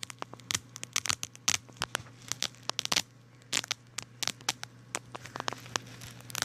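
Irregular sharp clicks and crackles of a plastic LED wristband being handled and carefully pried open, with a faint steady low hum underneath.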